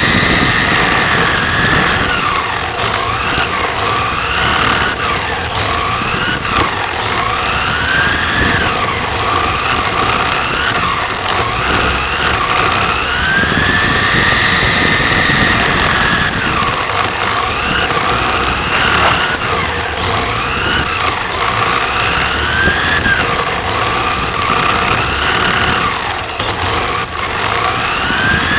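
Onboard sound of a 1/10-scale electric RC touring car (Team Associated TC4 in USVTA trim) racing laps: its electric motor and drivetrain whine rising in pitch under throttle and falling away into the corners, over and over, with one longer rise about halfway through on the straight.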